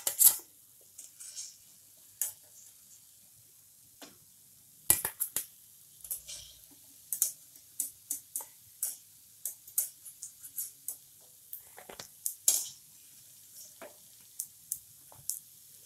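A wire-mesh skimmer (jhara) clinks and scrapes against a metal kadai in many irregular sharp clicks as fried shakarpara are scooped out of hot oil and drained. Under the clicks the oil sizzles faintly and steadily.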